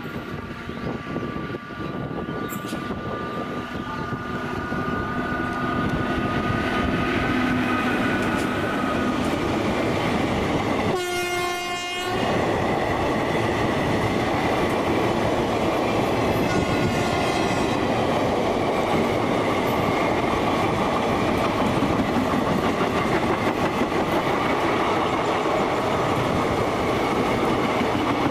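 Indian Railways WAP-4 electric locomotive and its long passenger train approaching at speed and running past, getting louder over the first six seconds. About eleven seconds in, the horn gives one blast of about a second. The coaches then roll by with a steady, loud clickety-clack of wheels on the rails.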